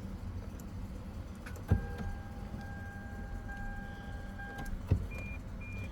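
Two sharp clicks about three seconds apart, with a steady electronic tone sounding between them and two short higher beeps near the end, over a low hum; no starter cranking follows, as the car has a no-crank fault.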